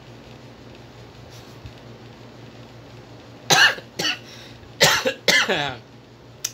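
A person coughing: four hard coughs in quick succession starting about three and a half seconds in, the last one longer and falling in pitch. A short click follows near the end.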